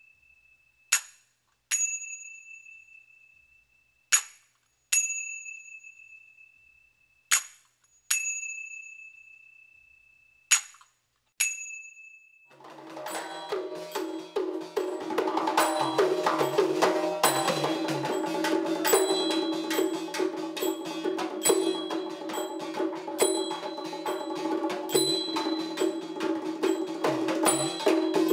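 Pairs of metallic strikes, each pair about every three seconds: a short, damped stroke followed by an open stroke that rings at a high pitch and fades over about two seconds. About twelve seconds in, percussion music takes over, with drums, a steady low tone and rapid sharp strokes.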